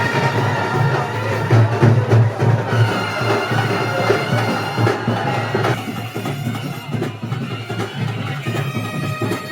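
Festival band music: wind instruments hold long notes, changing pitch a few times, over steady drumming.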